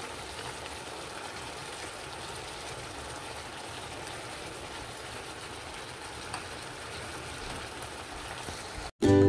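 Chicken piccata's lemon-caper pan sauce simmering in a skillet with chicken breasts, a steady bubbling hiss. It cuts off suddenly about nine seconds in and music starts.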